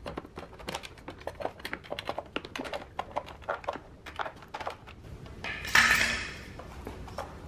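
Irregular clicking and tapping of metal and plastic as a long screwdriver pries a BMW M54 fuel rail and its injectors up out of the intake manifold, with one louder noisy sound of about half a second near six seconds in as the rail is worked loose by hand.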